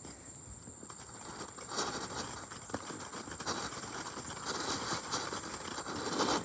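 Small handheld or ground firework hissing as it burns, starting about two seconds in, wavering in loudness, and stopping abruptly near the end.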